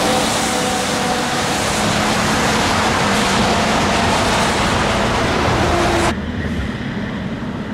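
Fire truck passing close by: loud, steady engine and road noise, with the tail of a warning tone fading out in the first second or two. The sound drops off abruptly about six seconds in to quieter vehicle noise.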